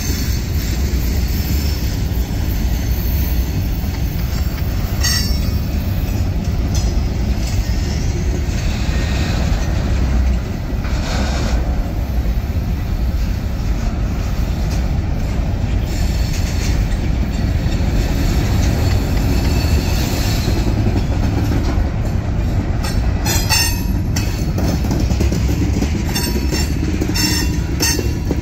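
CSX freight cars (covered hoppers and boxcars) rolling past at a grade crossing: a steady, loud, low rumble of steel wheels on the rails. Sharp wheel clacks come now and then, most of them in the last several seconds.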